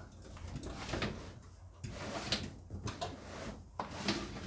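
Ford Galaxy swivelling captain's chair being turned on its swivel base, with a series of clicks, knocks and rustles and a louder clunk at the very end. The base only turns through 180 degrees, limited by a stop lug.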